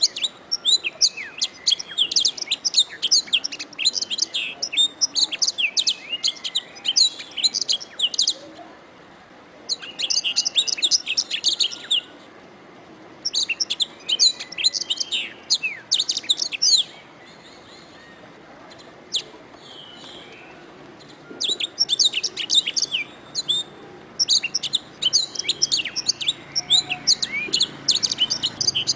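Domestic canary singing: fast runs of high chirps and trills in several bouts, with short pauses between them and a longer lull in the middle.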